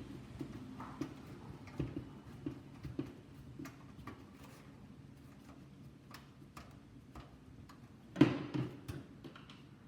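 Light metallic clicks and taps from a power supply being screwed into a PC case, about two a second at first and then sparser, with one louder knock about eight seconds in.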